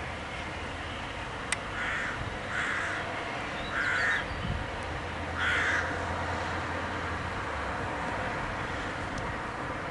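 A crow cawing four times, spaced about a second apart, over a steady background rush.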